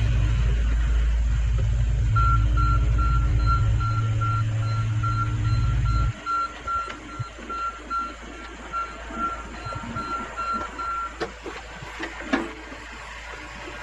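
Mason dump truck's engine running with its back-up alarm beeping steadily, about twice a second. The engine sound cuts off abruptly about six seconds in while the beeping goes on, followed by a few sharp knocks near the end.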